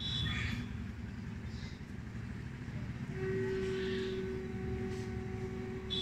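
Steady low outdoor background rumble. A steady droning hum joins it about three seconds in and holds.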